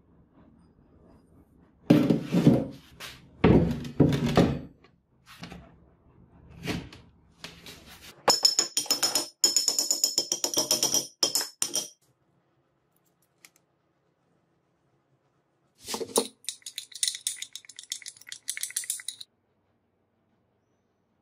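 Hammer blows on a hand-made steel axe head and its handle: several heavy knocks, then a quick run of light, ringing metal taps. A thump and a short high hiss follow later.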